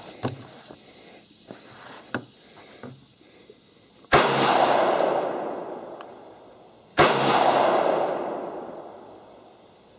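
Two 9mm Glock pistol shots about three seconds apart, each a sharp crack followed by a long rolling echo that dies away over two to three seconds. A few light handling clicks come before them as the pistol is drawn from its holster.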